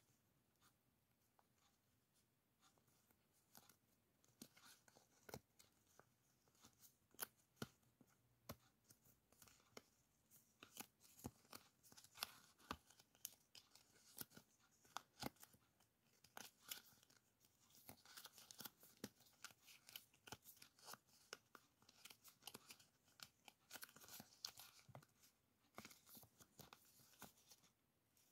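Clear plastic sticker packet crinkling and paper die-cut stickers rustling as they are handled: a faint run of short, sharp crackles, sparse at first and busier from about a third of the way in.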